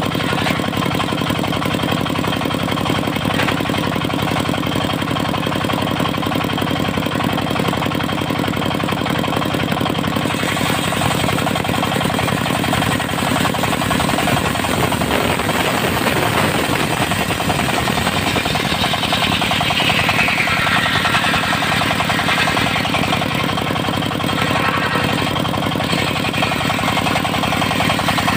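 Diesel engine of a portable circular sawmill running steadily. A higher-pitched saw noise swells and falls about two-thirds of the way through.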